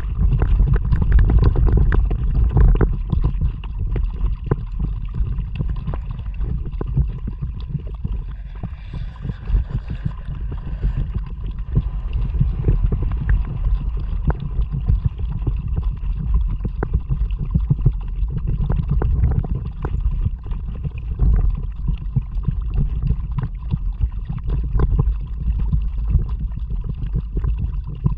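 Kayak moving through water under paddle, heard on an action camera's microphone: a steady low rumble of water and wind with many small splashes throughout.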